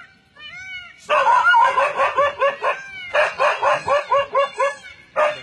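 A dog barking in fast runs of barks, about six a second, starting about a second in, with a short break in the middle and one more bark near the end. It is barking at a leopard hidden in the bushes.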